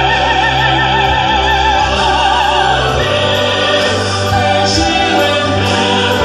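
A woman sings in a classical, operatic style through the hall's PA, holding one long high note with a wide vibrato for the first three seconds or so, over a recorded orchestral accompaniment.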